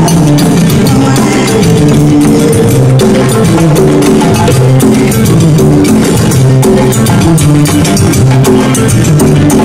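Loud band music: barrel drums on wooden stands, struck with sticks, keep a dense rhythm over a repeating electric bass line.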